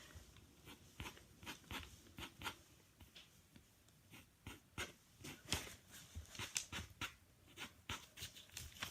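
Pen scratching on paper in a quick, irregular series of short strokes.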